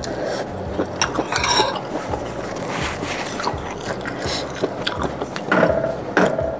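Close-up eating sounds of spicy rice noodles in oily broth: chewing and wet mouth noises, with irregular clicks of chopsticks and a metal spoon against a ceramic bowl.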